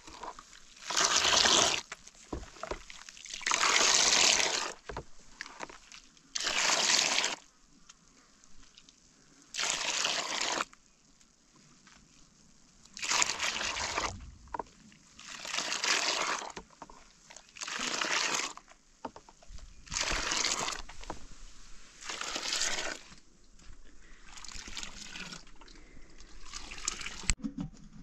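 Frothy milk scooped with a metal bowl and poured back into a plastic basin, over and over: about a dozen splashing pours, one roughly every two and a half seconds, the later ones a little softer.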